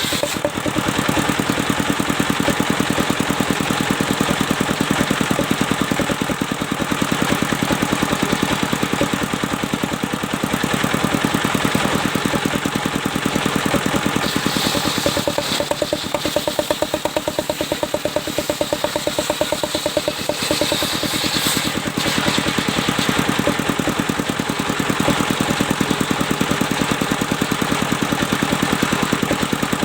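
Engine of a sawmill running steadily with a rapid, even beat. For several seconds in the middle, a higher-pitched hiss rises over it and then drops away.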